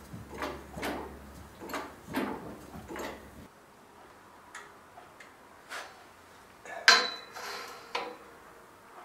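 Hand-pumped hydraulic tube bender being worked to bend a steel roll-cage tube the last few degrees. The pump strokes click about twice a second for the first three and a half seconds, then stop. A few scattered clicks follow, and a sharp metallic knock about seven seconds in is the loudest sound.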